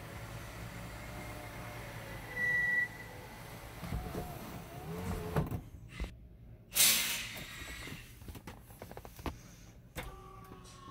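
Power sunroof motor of a 2005 Nissan Armada running steadily as the glass panel slides, with a short high squeal about two and a half seconds in. After it stops come clicks and, near seven seconds in, a brief loud hiss.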